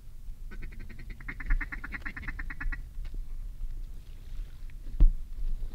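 A duck call blown in a fast, even chatter of quacks, about nine a second for a little over two seconds, calling to incoming ducks. A single sharp knock about five seconds in.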